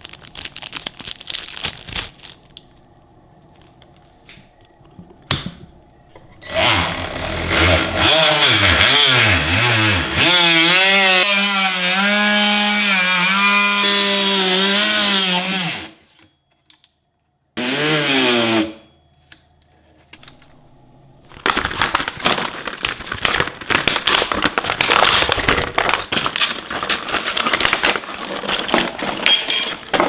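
Parkside PKGA 20-Li C2 cordless oscillating multi-tool running with its blade cutting into wood, a buzz that wavers in pitch at first and then holds steady for several seconds. A second short run winds down in pitch. Plastic packaging crinkles at the start and through the last third.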